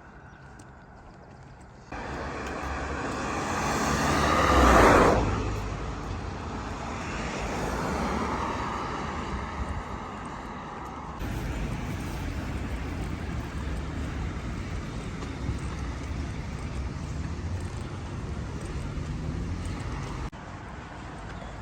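Road traffic: a vehicle passes close, its noise swelling to a peak about five seconds in and then fading, followed by steady traffic noise.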